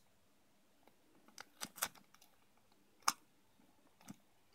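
Light clicks and taps of aluminium-cased electrolytic capacitors knocking against each other and the tabletop as they are handled and pushed into a row, the sharpest about three seconds in.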